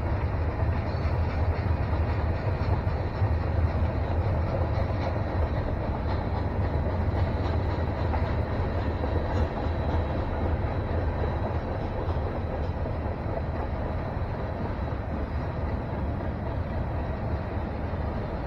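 Freight train cars rolling past: a steady rumble of steel wheels on rail, easing slightly toward the end.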